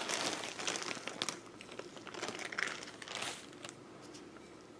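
Rustling and crinkling of a packet being handled as green sniglet granules are tipped out of it into a small plastic container, with scattered light clicks. The rustling dies away about three and a half seconds in.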